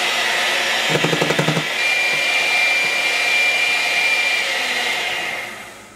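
An old electric hand mixer running, its beaters whipping egg whites in a steel bowl while the yolks are worked in, with a brief rattle about a second in. The motor noise dies away near the end.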